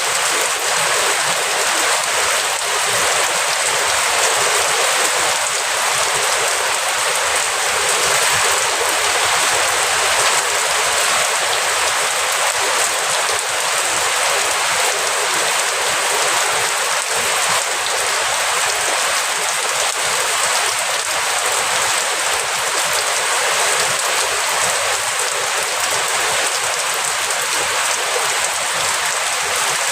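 Steady rain falling, a dense, even hiss of drops that keeps up without a break and with no thunder.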